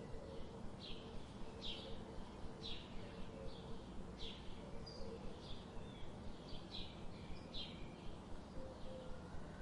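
Goslings peeping: short, high chirps repeating about once or twice a second, over a steady outdoor background noise.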